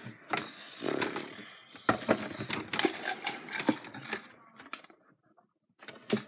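Paper slips rustling and plastic cups being handled on a tabletop, with scattered clicks and knocks. The handling stops for about a second near the end.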